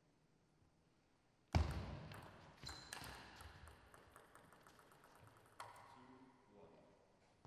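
Table tennis rally: a sudden loud knock about a second and a half in, then a run of quick, light clicks of the celluloid ball off bats and table, with a last sharper knock near the end of the rally.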